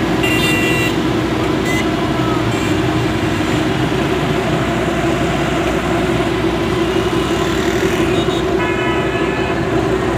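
Busy road traffic: motorcycle, car and truck engines running as they pass. A vehicle horn honks briefly near the start, and again for about a second near the end.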